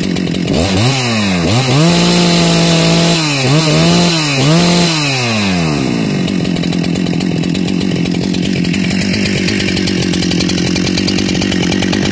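Husqvarna 394 XP two-stroke chainsaw being revved: a quick rev-up and drop about a second in, then held at high revs with a few short dips, falling back to a steady idle about six seconds in.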